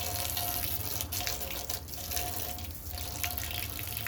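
Water running and splashing during washing, with a few light clicks and knocks.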